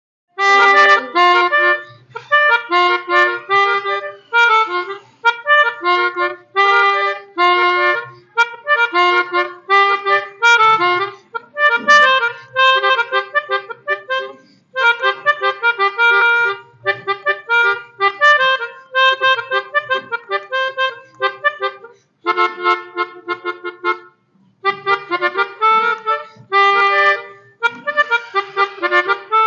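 Pianika (melodica) playing the "telolet" bus-horn tune: short phrases of quick reedy notes, repeated over and over with brief gaps between them.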